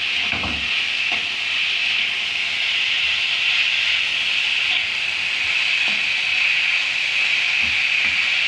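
Chopped carrots and capsicum sizzling steadily in hot oil in a wok as they are lightly sautéed. A spatula stirs them, scraping and giving a few knocks against the pan.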